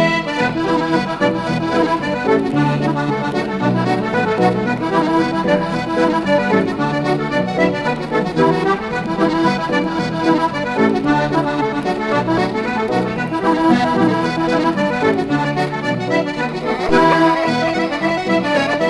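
Background music with an accordion playing the tune.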